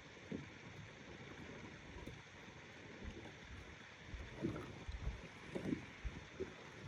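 Small waves lapping and splashing at the lake shore in a strong wind, with gusts buffeting the microphone in low rumbles. A few louder splashes come in the second half.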